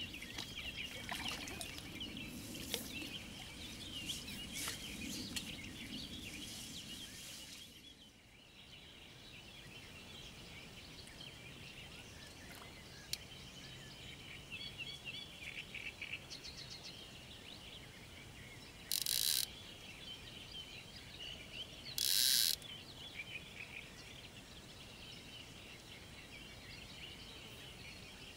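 Several birds chirping and singing without a break. Two short, loud hissing bursts stand out, the first about two-thirds of the way through and the second some three seconds later.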